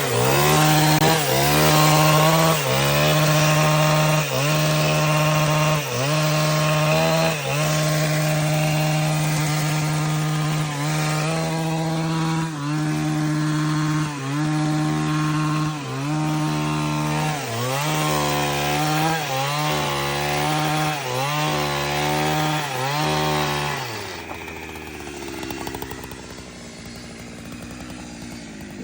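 Chainsaw running at full throttle while cutting into the trunk of an old cinnamon tree, its pitch dipping briefly every second or two as the chain bites, the dips coming faster later on. Near the end the saw's sound drops away, leaving quieter noise.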